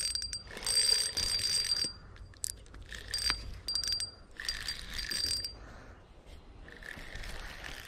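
Ultralight spinning reel being cranked in short spurts, a high whirring with sharp clicks in between, as a jig is retrieved and a white bass is brought in.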